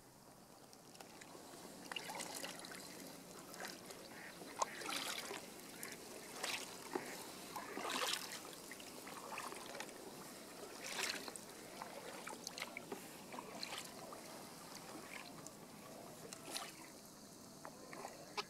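Kayak paddle strokes on calm water: irregular splashes and dripping as the blades dip in and lift out, with water trickling off them.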